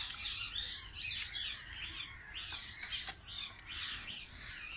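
Birds chirping: a steady run of short, high calls, several a second. A single sharp click about three seconds in.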